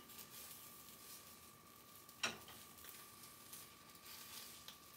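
Faint sizzling of egg cooking in a rectangular tamagoyaki pan, with a single sharp click of chopsticks against the pan a little over two seconds in.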